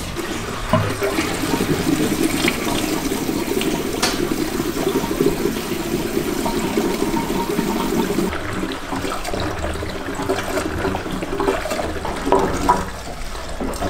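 Petrol pouring from a plastic jerry can into a car's fuel filler neck, a steady gushing of liquid into the empty tank that eases off after about eight seconds.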